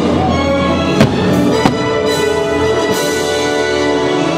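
Orchestral show soundtrack playing loudly over the park speakers, with two sharp bangs about a second in and again half a second later, from fireworks bursting overhead.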